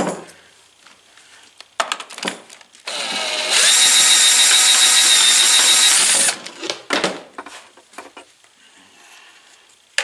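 Cordless drill spinning the crank of a Vevor bench-top wire stripping machine, feeding 14 gauge solid wire through the blades. It starts about three seconds in, runs as a steady whine and stops after about three seconds. Short handling clicks and knocks come before and after.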